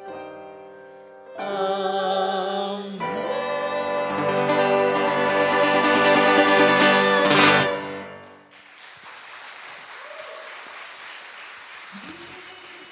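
A vocal group singing live with piano and band accompaniment, swelling to a loud held final chord that ends about eight seconds in. After it comes a quieter, even rush of noise.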